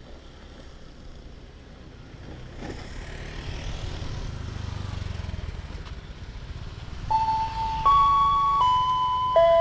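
Road traffic passing, with a vehicle rumbling past around the middle. About seven seconds in, the railway level crossing's electronic warning siren starts: a loud tune of held electronic notes that step up and then down in pitch.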